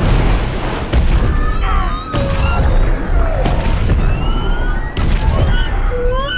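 Film sound effects of underwater explosive charges going off: several deep booms. Between them come high, gliding wails from the whale-like tulkun of the pod.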